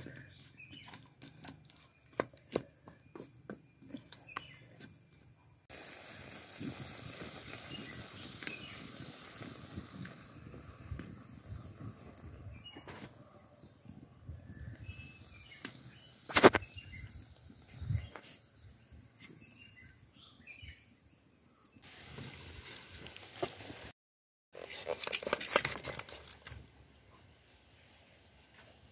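A metal spatula stirring chicken pieces in an aluminium kadai, clinking and scraping against the pan for the first several seconds. Then a steady hiss follows, with a few bird chirps and an occasional sharp crack.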